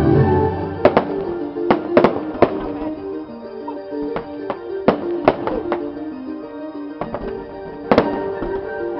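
Fireworks going off in irregular sharp bangs and cracks, several in quick succession in the first couple of seconds and another cluster near the end, over music playing throughout.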